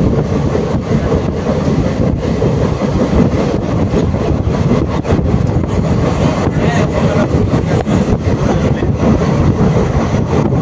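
DEMU (diesel multiple unit) passenger train running along the track, heard from on board: a loud, steady rumble of wheels on rails with many small rattling clicks.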